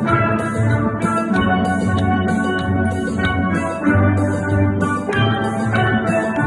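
A children's steel band playing steel pans in ensemble, with low bass-pan notes under the melody and a steady beat from a high hissing percussion instrument.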